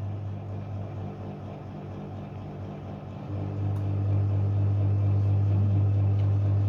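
Vintage Frigidaire Super DeLuxe Automatic 50 washing machine running empty, its induction motor humming. The hum drops and flutters for about three seconds, then comes back steady and louder as the motor picks up again.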